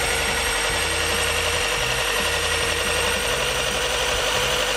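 Parkside PSBM 750 B3 corded hammer drill running unloaded in plain drilling mode, with no bit, at one of the lower steps of its speed wheel: a steady, high-pitched motor whine. Its speed barely changes between these lower steps.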